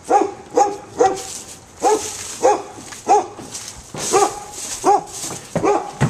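A dog barking repeatedly: about ten short barks, one every half second or so.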